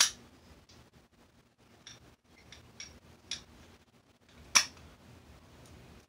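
Sharp metallic clicks and taps of steel lock-picking tools against a Master Lock No. 5 padlock: a loud click at the start, a few faint ticks in the middle, and another loud click about four and a half seconds in.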